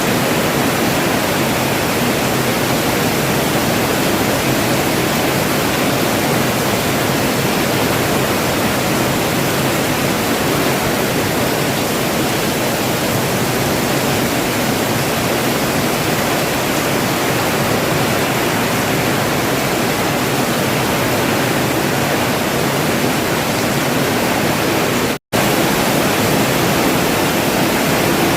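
Heavy rain falling steadily: a dense, even hiss, broken once near the end by a split-second gap.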